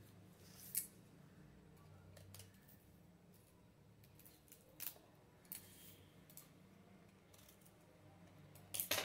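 Knife cutting and scraping a ridge gourd on a kitchen counter: a few faint crisp cuts a few seconds apart, the loudest cluster near the end.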